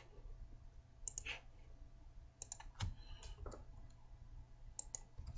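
Computer mouse buttons clicking: a handful of short, sharp clicks, several in quick pairs, over a faint steady low hum.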